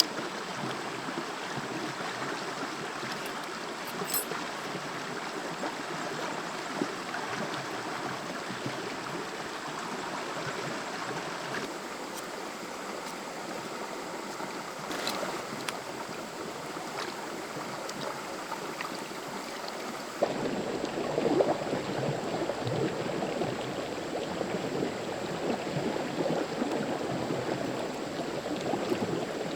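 Forest stream flowing steadily, with a few faint clicks. About two-thirds of the way through the rush of water becomes lower and louder.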